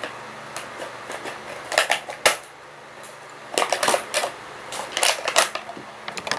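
Stiff clear plastic packaging crackling and clicking as it is opened by hand, in three short clusters of sharp clicks about two, four and five seconds in.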